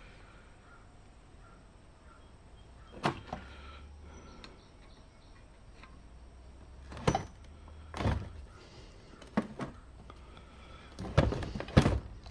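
Scattered clunks and knocks, about half a dozen with quiet gaps between them and the loudest near the end: steel parts of a dismantled wood planer being handled and set down.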